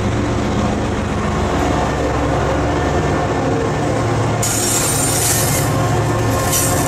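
Freight train passing close by: a steady low rumble of rolling rail cars. A high-pitched hiss of steel wheels on rail joins about four and a half seconds in, as a Canadian Pacific GE AC4400CW diesel locomotive draws alongside.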